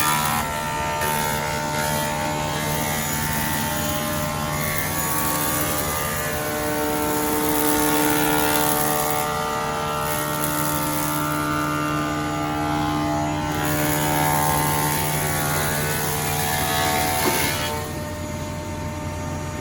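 Wadkin PAR MkII four-sided planer running without load. Its motors and cutter heads give a steady hum and whine over a rushing noise. Near the end the rushing drops away and the sound gets quieter.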